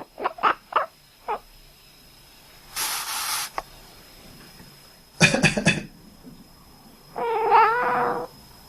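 A sleeping cat making short quack-like chirps, four in quick succession, a breathy hissing burst, then a person coughing several times in a quick cluster. Near the end the cat answers with one longer, wavering murmur.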